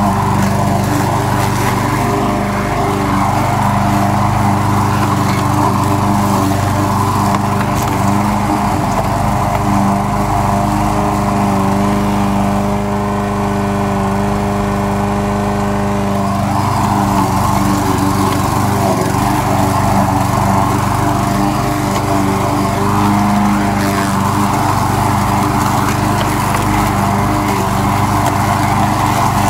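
Troy-Bilt push lawn mower's small gasoline engine running steadily as it cuts grass, with cutting noise over the engine's hum. For a few seconds around the middle the cutting noise eases and the engine tone stands out clearly.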